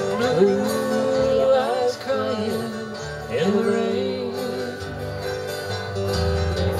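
Small acoustic country band playing an instrumental break: strummed acoustic guitars and bass under a lead melody with sliding, bending notes.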